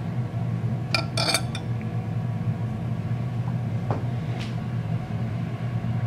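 Glass thermometer being set into a glass beaker of water: a few quick, light glass-on-glass clinks about a second in, and a couple of softer taps later. A steady low hum runs underneath.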